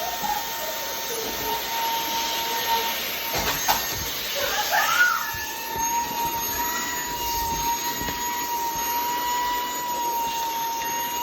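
Wyze cordless stick vacuum's brushless motor running steadily, a rushing hum with a high whine, briefly wavering about four to five seconds in.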